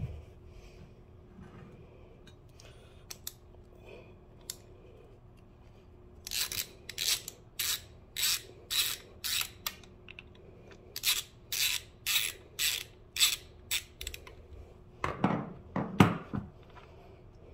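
Hand socket ratchet clicking in runs of even strokes, about two a second, with a short pause between runs, as it backs out an oil drain plug. Near the end a few duller scraping sounds as the loosened plug is turned by hand.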